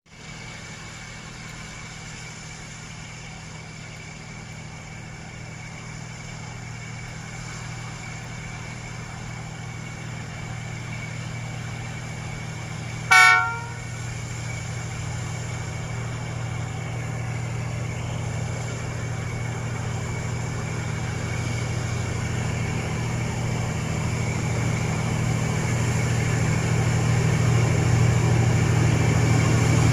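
Two diesel locomotives, a D19E and a D11H, hauling a freight train up a grade: a steady low engine drone grows louder as the train approaches. About thirteen seconds in, the lead locomotive gives one short horn blast.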